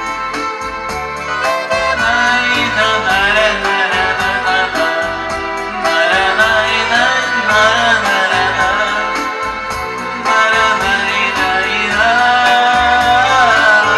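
Backing-track music with a steady beat and a wavering melody line.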